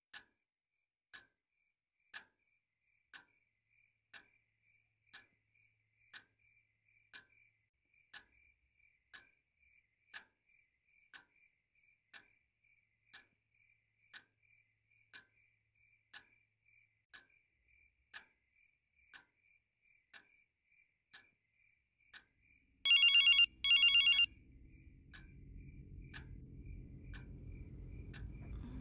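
A clock ticking about once a second, then about 23 seconds in a telephone rings loudly with a double ring, two short rings close together. A low rumble starts just after the rings.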